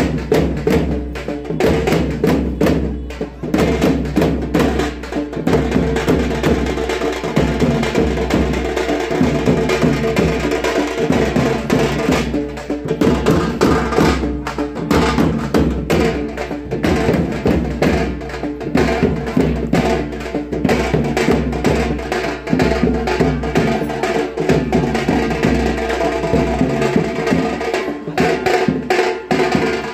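Music with busy percussion: a fast run of sharp drum strokes over a steady musical bed.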